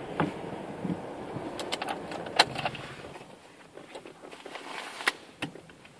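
Car rolling slowly to a stop, heard from inside the cabin: the low engine and road rumble fades away about halfway through, while a few sharp clicks and light rattles come from inside the car.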